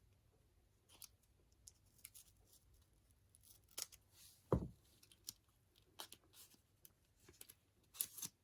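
Photocards and their plastic packaging being handled: faint scattered clicks and rustles, with one louder thump about halfway through and a few sharper clicks near the end.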